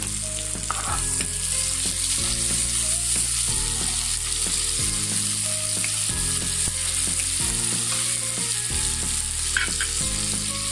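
Chopped onions, garlic paste and whole green chillies sizzling steadily in hot oil in a pan, stirred with a spatula.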